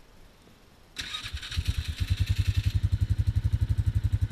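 ATV engine being started: it cranks about a second in, catches almost at once, and settles into an idle with an even, rapid beat.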